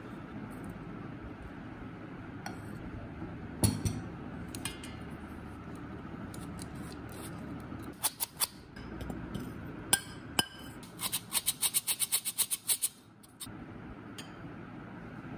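Flour being sifted through a metal flour sifter into a stainless steel bowl: scattered metallic clinks and knocks, then about two-thirds of the way through a fast, even run of about a dozen clicks over two seconds. A steady low hum runs underneath.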